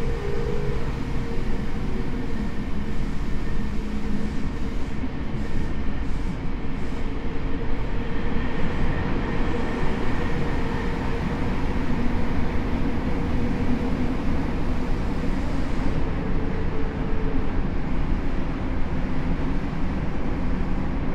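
Tokyo Metro 7000 series subway car with Mitsubishi IGBT VVVF drive, heard from inside the car while running at speed: a steady rumble of wheels on rail with a steady tone from the traction equipment that fades out about 17 seconds in.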